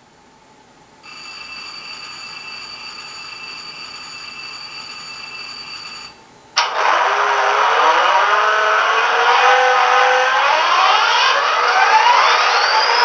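Sampled EMD diesel start-up from the Tsunami 2 sound decoder in an HO-scale Athearn Genesis GP40-2L model, played through the model's small speaker as track power comes on. About a second in, a steady drone with several held tones begins. It cuts out just after six seconds, and half a second later the prime mover starts with a sudden, much louder burst and runs on, with whines rising steadily in pitch.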